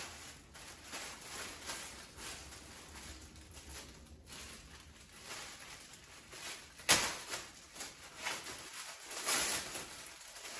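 Clear plastic bag crinkling and rustling as it is handled and pulled open, with irregular crackles and a sharp crackle about seven seconds in.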